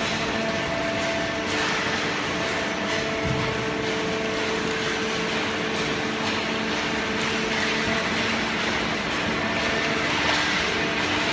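Hydraulic waste paper baling press running: a steady machine drone with a hum from its pump unit.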